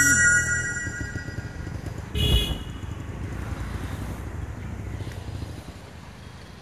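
A motor vehicle passing nearby, its low engine rumble dying away about five and a half seconds in. There are steady high tones in the first second and a short, loud horn-like toot about two seconds in.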